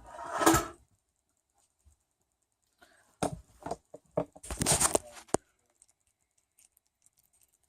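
Short bursts of clicking, knocking and scraping as cookware is handled: a brief one at the start, then a busier cluster from about three to five seconds in.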